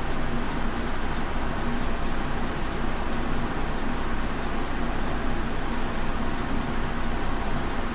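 Steady hiss and rumble of noise with a faint low hum, and six short, faint high beeps about a second apart through the middle.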